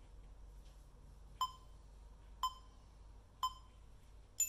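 Countdown timer beeping: three short beeps a second apart, then a longer, higher-pitched beep as the count reaches zero, signalling the end of a timed stretch interval.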